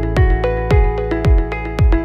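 Background music with a steady beat: a low kick-drum thump about twice a second under held notes.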